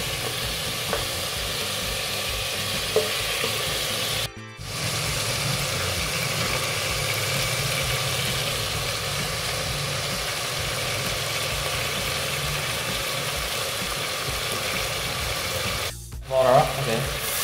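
Pieces of pork bone frying in an aluminium pot, with a steady sizzle. The sizzle cuts out briefly twice, about four seconds in and near the end.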